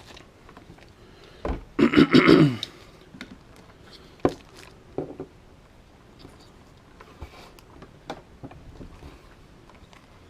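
A short, loud vocal sound about two seconds in, followed by scattered sharp clicks and small taps of a pocket multi-tool crimping a wire connector and handling the wires.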